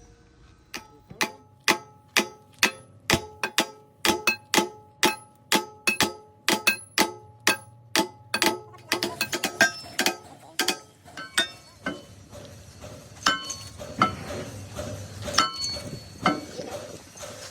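Repeated hammer blows on metal, about two strikes a second, each ringing with a metallic clang.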